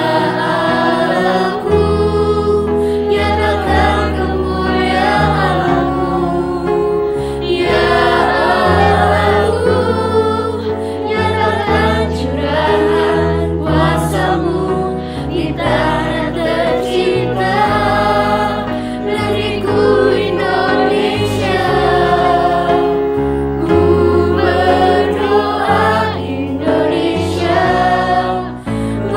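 Mixed youth choir of boys' and girls' voices singing a slow song in harmony, over a low bass line that holds each note for a couple of seconds.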